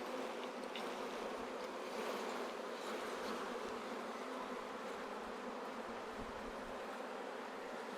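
A swarm of honey bees buzzing in a steady, continuous hum.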